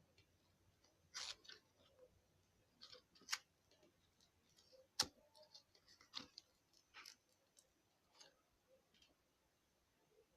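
Slime being pressed and pulled, giving soft irregular sticky clicks and small crackles, with a sharper click about five seconds in.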